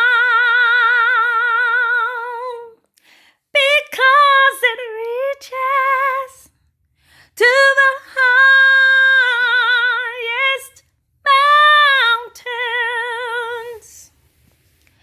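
A woman singing a gospel hymn unaccompanied: high held notes with a wide, even vibrato, in four phrases with short breaths between them.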